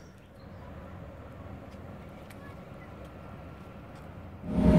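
Faint steady outdoor background hiss with a few faint ticks. Near the end it cuts abruptly to loud, steady bus engine and cabin noise.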